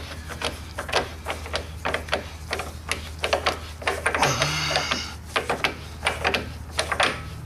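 Rear main seal installer being turned by hand at the back of a VW 1600 engine case, its metal parts clicking and clinking irregularly, with a brief scrape about four seconds in.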